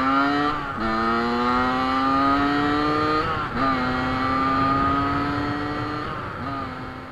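Small two-stroke motorcycle engine accelerating through the gears. The pitch climbs steadily, then drops sharply at each of three gear changes, about a second in, near the middle and near the end.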